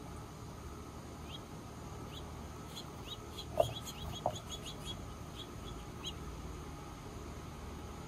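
Birds chirping: a run of short high chirps, quickest about halfway through, over a steady low background hum. Two short, louder low sounds come about halfway through.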